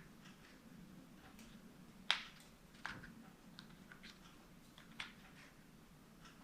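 A few small sharp clicks and taps of plastic parts and hand tools being handled during a Joy-Con disassembly, the loudest about two seconds in, with others near three and five seconds.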